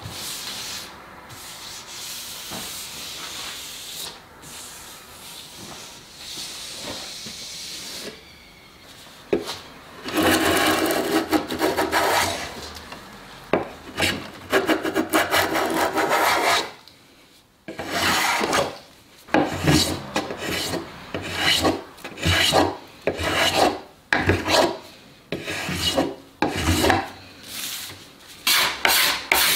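Hand smoothing plane shaving a hardwood bed leg, its blade cutting with a rasping hiss on each stroke. The strokes come repeatedly, about one a second in the second half, after a quieter steady rubbing at the start.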